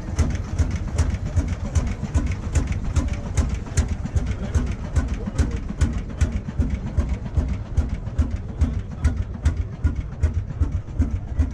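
Lanz Bulldog tractor's single-cylinder two-stroke hot-bulb engine idling, with a steady, quick, even beat of exhaust pulses over a deep rumble.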